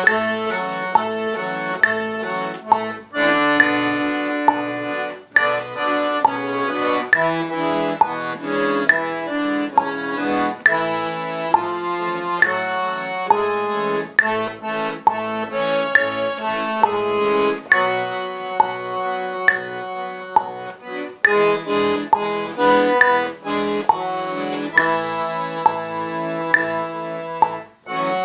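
Accordion playing a tune slowly, at about half its normal tempo: a right-hand melody over an even, steady bass-and-chord beat on the left.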